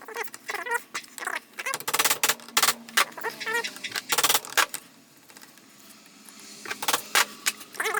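Hammer driving a punch against the jaws of the Makita DDF484's rusted chuck: sharp metal-on-metal blows in irregular clusters, the heaviest about two and four seconds in and another pair near the end.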